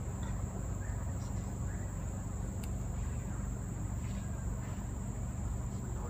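Continuous high-pitched insect drone, one steady unbroken tone, over a low steady rumble.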